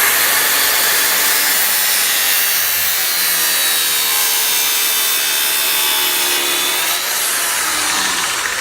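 Angle grinder with an abrasive cut-off disc running at full speed and cutting into a smartphone, a loud steady whine with a gritty hiss. The pitch wavers slightly as the disc bites, and near the end the grinder eases off.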